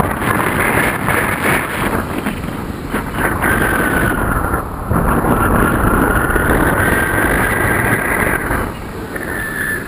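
Wind rushing over the microphone of a camera riding along on a paraglider in flight, loud and buffeting throughout. A thin whistling tone sounds over the wind for much of it.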